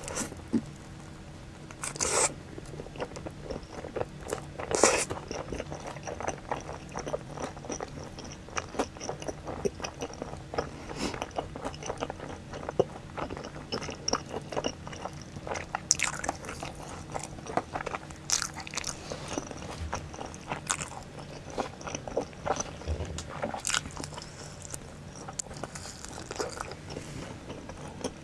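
Close-miked biting and chewing of pizza and saucy boneless fried chicken, with irregular crunches from the crust, louder about two and five seconds in.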